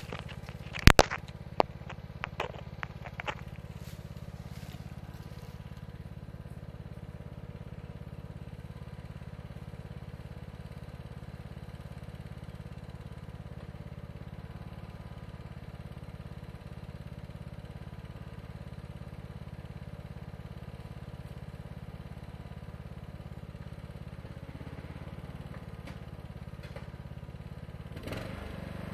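Troy-Bilt Bronco lawn tractor's 19 hp Kohler Courage engine running steadily with a low hum, a few sharp clicks and crackles sounding over it in the first few seconds. Near the end the engine note changes and grows slightly louder as the tractor moves off.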